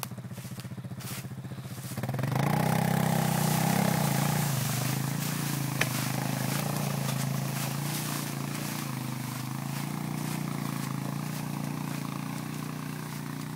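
Small vehicle engine running at a steady low speed, then picking up about two seconds in and running on steadily under load. A single sharp click about six seconds in.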